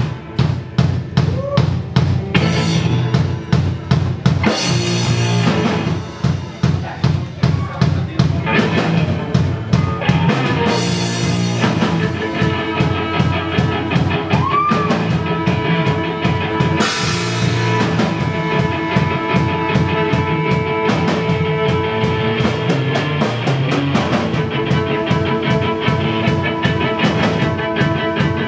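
Live instrumental rock: a drum kit playing a steady beat of kick, snare and cymbals under violin and electric guitar.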